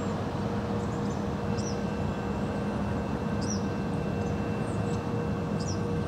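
Steady outdoor background hum with a constant low tone underneath. A few faint, short high chirps come and go, about three of them.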